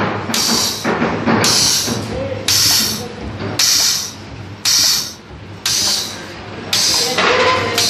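Pneumatic commutator fusing (hot-staking) machine cycling on a mixer-motor armature, about one stroke a second, each stroke ending in a short sharp hiss of exhausting air as the commutator bars are fused one after another. A steady low hum runs underneath.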